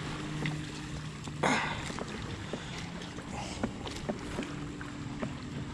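A hooked bass splashing at the surface about a second and a half in, with small knocks and clicks of handling on a kayak. A steady low hum runs underneath.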